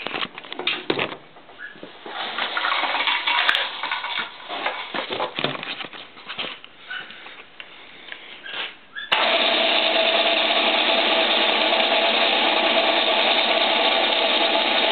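Electric telpher hoist's motor starting abruptly about nine seconds in and running steadily as it lifts a heavy bench vise on a chain sling. Before that, irregular clinks and knocks as the chain and vise are handled.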